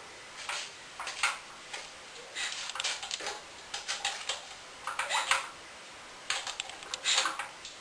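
Hand tools and metal engine parts clicking and clinking irregularly, in short clusters, as a small air-cooled engine is worked on by hand.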